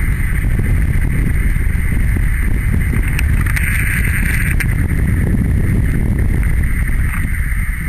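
Wind buffeting the camera microphone as a loud, fluttering low rumble. A steady higher hiss runs underneath and swells briefly about four seconds in.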